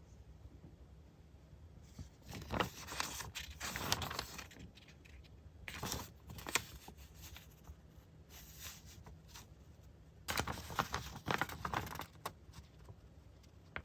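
Paper goods and plastic packaging being handled, rustling and crinkling in several short spells, about two, six, eight and a half and ten seconds in.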